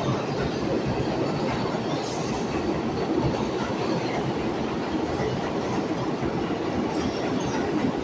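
R142A subway train running, a steady rumble of wheels on track, with a brief faint high hiss about two seconds in.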